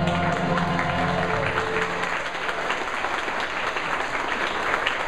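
Audience applauding, a dense patter of many hands clapping. The last held notes of the song fade out over the first two seconds.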